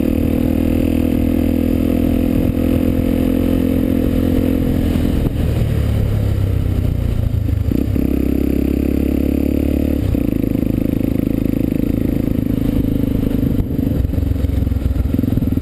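Honda XR 250 Tornado's single-cylinder four-stroke engine running under way, heard from a helmet-mounted camera. The engine note changes a few times, dropping about five seconds in, with a brief break near eight seconds and a change again around ten seconds, as throttle or gear changes.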